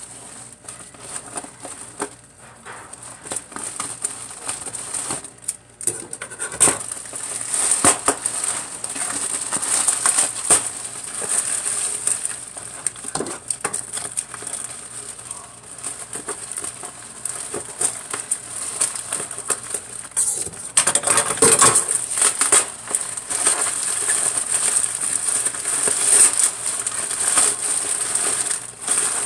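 A taped plastic shipping bag crinkling and crackling as it is handled and pulled open, with irregular rustles and small clicks. It gets louder about two-thirds of the way through.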